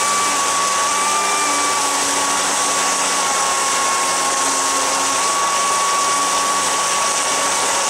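Electric jet-drive unit running steadily at about half throttle: its brushless motor and impeller whine at one steady pitch over the loud rush of the water jet churning into a barrel.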